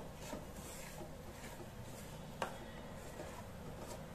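Wooden spatula stirring and scraping a dry, crumbly coconut and milk-powder mixture in a nonstick pan, faint, with one sharper knock a little past halfway.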